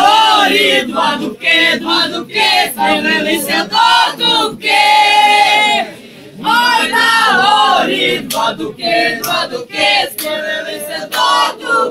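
A group of young men and women singing loudly together, with held notes and a short break about six seconds in.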